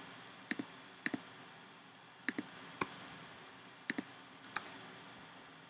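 Faint, sharp clicks of a computer mouse and keyboard, mostly in quick pairs, six times over a few seconds, over a quiet room hiss.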